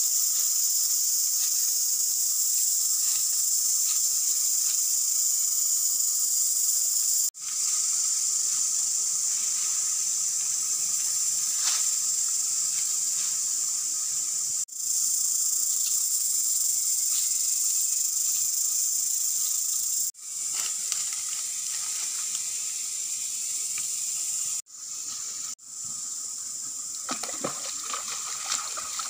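A steady, high-pitched chorus of insects droning in forest, breaking off abruptly several times. Near the end, hands splash in shallow stream water.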